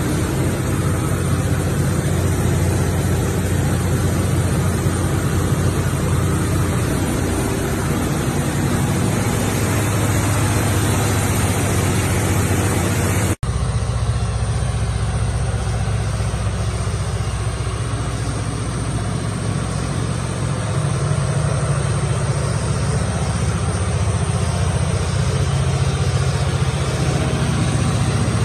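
200 kW Cummins natural-gas generator set running steadily, a loud, even low hum. About halfway through, the sound drops out for an instant and comes back with less hiss.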